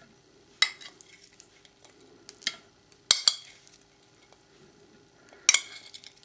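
Metal serving spoon clinking and scraping against white ceramic dishes while vegetables are spooned onto a plate: about five sharp clinks, the loudest about three seconds in.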